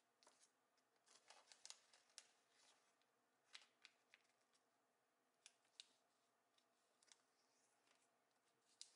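Faint crackling and rustling of a sheet of origami paper being folded and creased by hand, with scattered sharp crinkles in small clusters.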